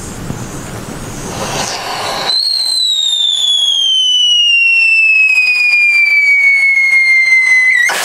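Whistling firework: a hiss builds, then about two seconds in a loud whistle starts high and falls slowly and steadily in pitch for about five seconds. It is cut off by a sudden sharp crack near the end.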